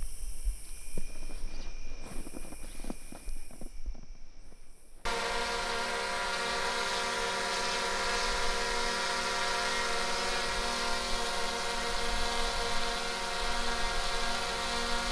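Night insects trilling high in spells of a second or two, with faint ticks. About five seconds in this cuts off abruptly into a steady buzzing hum made of many held tones.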